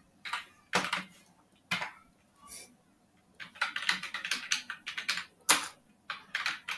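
Keystrokes on a computer keyboard: a few separate key clicks, then a quick run of typing through the second half, with one louder key press just after.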